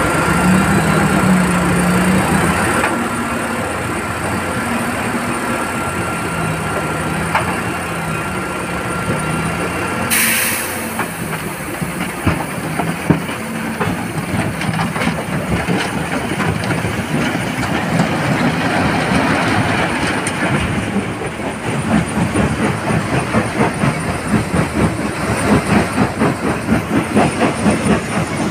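BharatBenz tipper truck's diesel engine running with a steady whine while the hydraulic hoist raises the dump body, then a long rumble of rock sliding and tumbling out into the crusher hopper. In the last several seconds comes a rhythmic clatter from the stone-crushing plant, about two beats a second.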